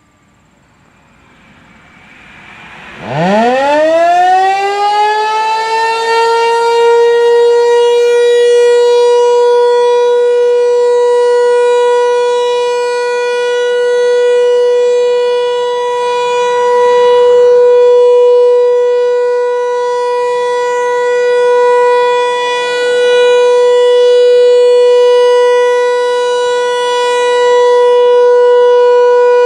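American Signal T-128 rotating outdoor warning siren winding up about three seconds in, its pitch rising fast to one steady high tone, then sounding continuously. It swells and fades every six seconds or so as the horn rotates. This is the monthly noon test of the siren.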